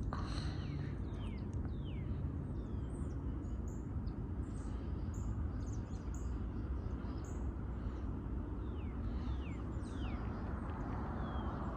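Steady low rumble of a CSX manifest freight train rolling by, with birds calling in short falling chirps over it.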